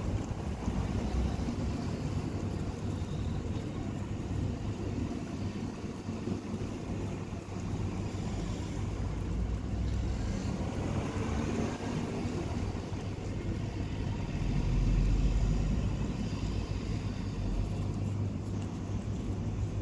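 A steady low rumble, swelling about fifteen seconds in, under the close, faint wet licking and chewing of a cat eating a melon rind.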